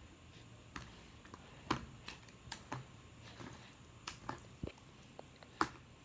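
Sticky, glossy slime being handled and stretched, giving off soft, irregular clicks and small pops.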